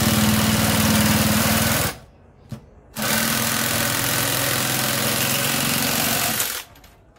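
Cordless drill driving a reciprocating-saw attachment whose Bosch metal-cutting blade (24 teeth per inch) saws through a metal tube held in a vise. It runs steadily with a fast even pulsing, stops about two seconds in, then runs again from about three seconds in until shortly before the end, cutting easily.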